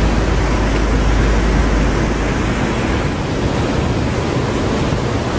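Steady rushing of lake water draining through a dam's flood-control gate, where it forms a large whirlpool. A deep rumble underneath eases a little about two seconds in.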